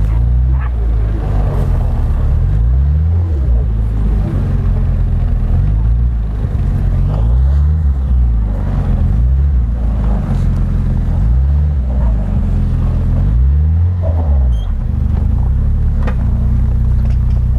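Suzuki Escudo's engine revved repeatedly under load, the pitch rising and falling every couple of seconds, as the stuck 4x4 works to climb off a steep sandy bank.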